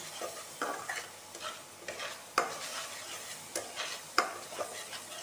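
A spatula stirring and scraping a thick spice paste frying in oil in a metal kadai, over a steady sizzle, with sharp scrapes and taps against the pan at irregular moments. The masala of onion, tomato, chilli and ground spices is being bhuna-fried.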